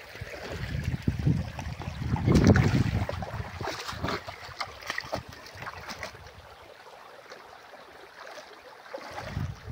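Creek water running, with wind buffeting the microphone in gusts over the first few seconds, then easing. Scattered short clicks run through it.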